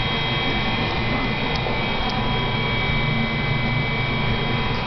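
Tornado simulator chamber's fan running steadily, a constant rushing noise with faint steady high tones on top.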